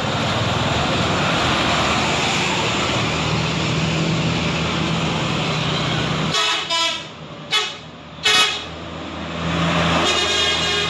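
Bus engine and road noise, then from about six seconds in a multi-tone telolet bus horn plays short notes of a jingle, with two brief loud blasts partway through.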